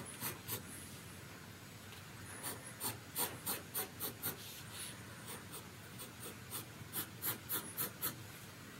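Pencil strokes scratching on drawing paper as light sketch lines are laid in, coming in runs of short, quick strokes several a second.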